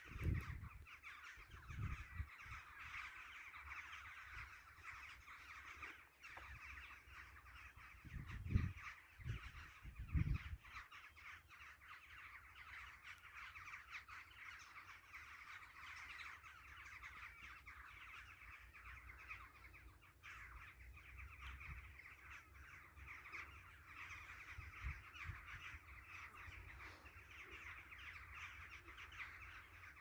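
A large flock of migrating birds circling overhead, many calling at once in a continuous dense chorus of short calls. A few low thumps on the microphone stand out near the start and again about 8 and 10 seconds in.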